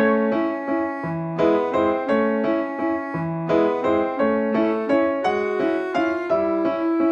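Background piano music, notes changing about twice a second.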